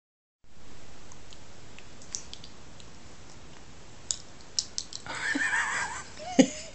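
Faint room hiss from a home recording, after a moment of dead silence, with scattered small clicks and handling knocks. About five seconds in there is a brief wavering high-pitched voice sound from the people behind the chin faces, then one sharp knock just before the end.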